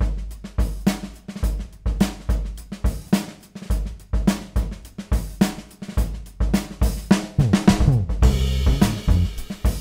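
Funk-jazz drum kit playing a steady groove on kick, snare and hi-hat. A fill near the end leads into the rest of the band, which joins with sustained pitched notes about eight seconds in.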